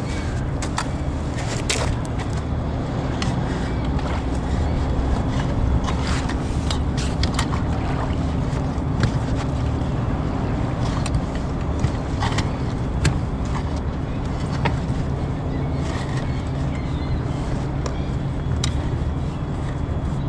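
A steady low mechanical hum throughout, with scattered clicks and knocks as a small Tohatsu outboard motor is handled and fitted onto an inflatable boat's wooden transom.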